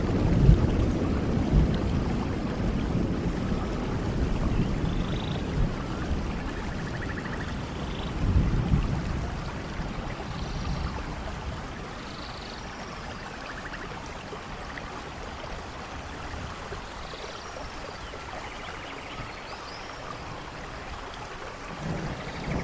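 Steady heavy rain with thunder: a low rumble fading in the first seconds, another about eight seconds in, and a new one building near the end. Short high chirps of small animals sound faintly over the rain.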